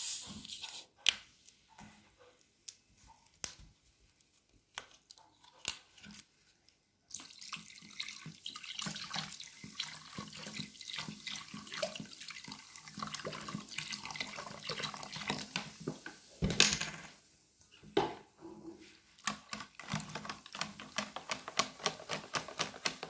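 Carbonated mineral water poured from a plastic bottle into a steel bowl of strained yogurt, splashing steadily for about ten seconds after some light handling clicks, ending with a sharp knock. Near the end a wire whisk rattles against the bowl in quick strokes as the mixture is beaten.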